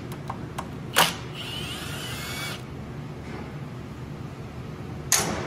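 A cordless power tool spins briefly, backing out a valve body bolt, with a wavering whir lasting about a second. A sharp click comes before it and another near the end.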